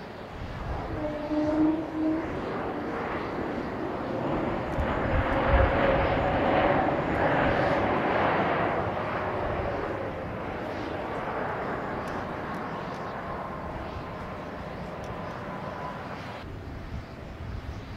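Jet airliner passing: engine noise swells, is loudest about six to eight seconds in, then fades, with an engine whine that drops in pitch as it goes by.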